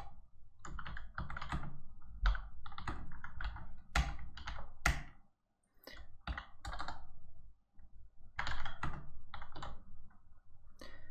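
Computer keyboard being typed on in quick runs of keystrokes, with a couple of short pauses.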